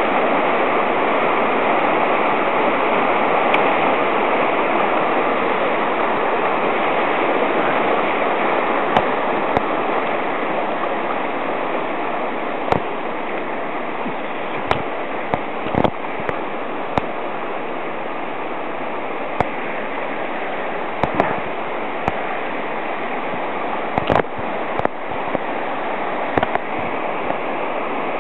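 Swollen mountain stream rushing steadily, with scattered sharp clicks and knocks, most of them from about nine seconds on.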